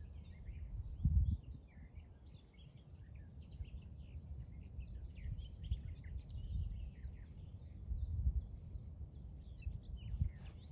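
Many small birds chirping and twittering in short scattered calls, over a low, gusting rumble of wind on the microphone that swells briefly about a second in and again near the end.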